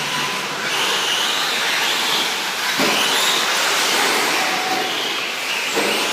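Electric 1/10-scale 4WD short course RC trucks racing on dirt: their motors whine, rising and falling as the trucks accelerate and brake, over a steady rush of tyres and track noise. Two sharp knocks come about three seconds apart.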